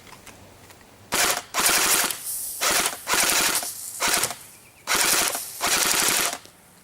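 Airsoft Thompson 1928 replica with a drum magazine firing a string of about seven short full-auto bursts, each a rapid stream of shots lasting about half a second, starting about a second in and stopping shortly before the end.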